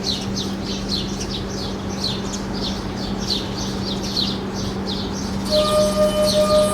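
A bird chirping over and over, quick falling chirps about three a second. About five and a half seconds in, a singing glass starts up: a steady, clear tone with one overtone, louder than the bird.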